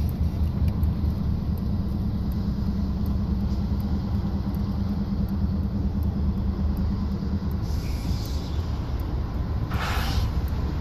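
Norfolk Southern diesel freight locomotives rumbling low and steadily as they lead a train across a stone arch bridge. There is a short burst of hiss near the end.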